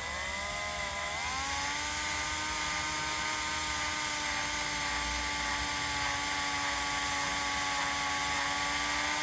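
Electric drill running in reverse to drive a 1/8-inch left-hand cobalt drill bit into a broken, hardened steel bolt in an engine block. The motor whine drops in pitch as the bit takes load in the first second or so, then holds steady while the bit cuts.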